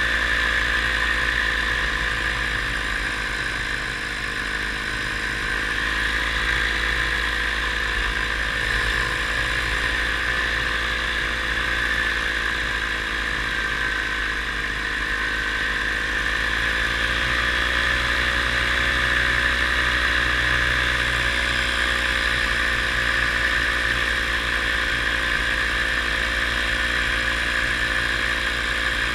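Paramotor engine and propeller running steadily in flight, a constant drone whose pitch wavers slightly about halfway through.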